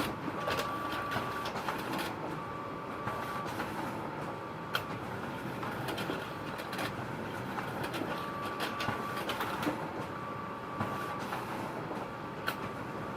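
Photocopier running: a steady mechanical whir with a high tone that sounds for about a second at a time, several times over, and a few sharp clicks.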